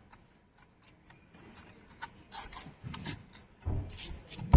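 Intermittent scraping and rubbing with light clicks, then a couple of low thumps near the end.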